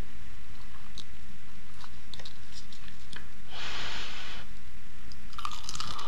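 Close-up eating sounds from a fried chicken empanada: small, scattered chewing clicks, a hiss lasting about a second midway, then a crisp crackling bite into the fried pastry crust near the end.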